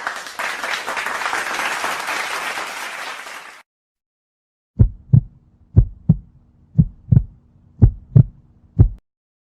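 A burst of applause that stops abruptly after about three and a half seconds, then a heartbeat sound effect: paired lub-dub thumps about once a second, repeated four or five times over a faint steady hum.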